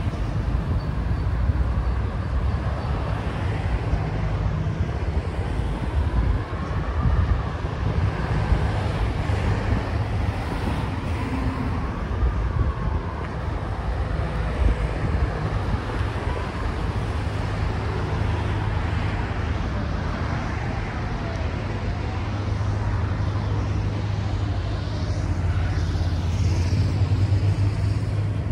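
Road traffic on a city riverside road: cars passing in a steady low rumble, swelling slightly near the end.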